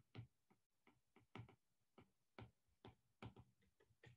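Stylus tip tapping and clicking on a tablet's glass screen during handwriting: a string of faint, irregular ticks.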